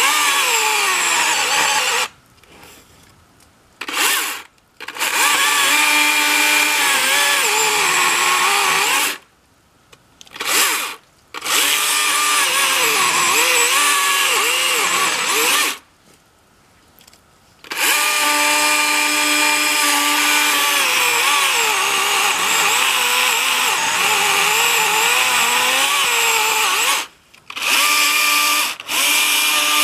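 Husqvarna 120i battery-powered chainsaw cutting into a tree trunk. It runs in stretches of a few seconds up to about nine seconds, stopping and restarting several times, with a few short blips of the trigger. Its pitch rises and falls as it runs.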